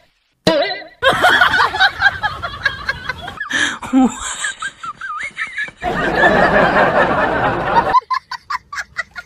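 People laughing and giggling, with a run of short, quick laughs near the end.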